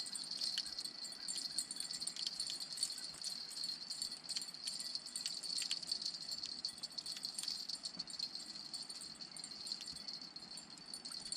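A steady high-pitched insect trill, with many irregular faint clicks and rattles over it.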